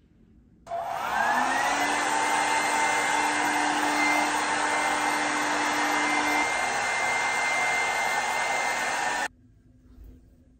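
Hot air brush running while drying wet hair: its motor spins up with a rising whine about a second in, blows steadily, and cuts off suddenly near the end.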